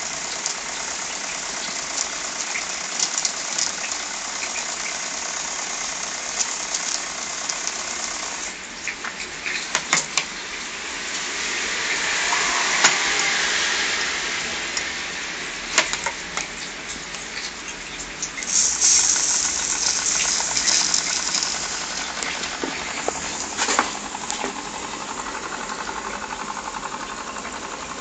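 Small live-steam model engine, fed from a Wilesco D49 brass boiler, running on a propeller test with a steady steam hiss and a light mechanical rattle. The hiss swells twice, and a few sharp knocks come through.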